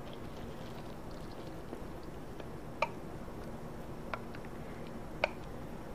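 Quiet room tone with a few light clicks as a spatula scrapes thick melted white chocolate out of a glass measuring cup onto popcorn.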